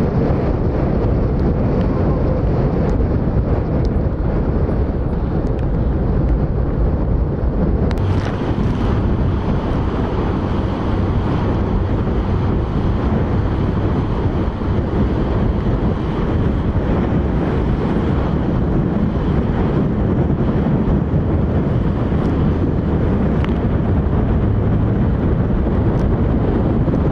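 Heavy, steady wind noise buffeting the microphone over choppy water, with a slight shift in the sound about eight seconds in.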